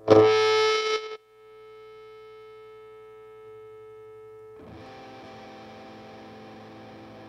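Electric guitar played through an Electro-Harmonix Double Muff fuzz pedal into a tweed-style valve amp. A loud fuzzed chord is struck and cut short after about a second, leaving a single note ringing. About four and a half seconds in, a grittier, fizzier sustained fuzz sound comes in.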